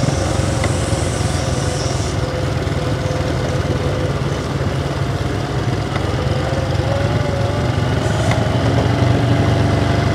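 Small motorbike engine running steadily while riding slowly, its pitch rising a little about two-thirds of the way through.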